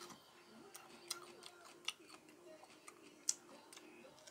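Faint, irregular crisp clicks of a raw yellow Scotch bonnet pepper being bitten and chewed, the loudest crunch about three seconds in, over a faint steady hum.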